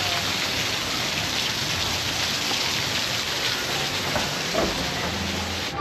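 Waterfall splashing and rushing steadily, cutting off suddenly near the end.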